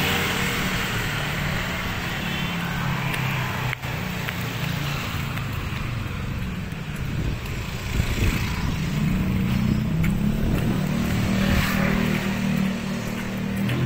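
Street traffic with motorcycles and cars passing close by, their engines running under steady road noise. The engine hum grows stronger in the second half.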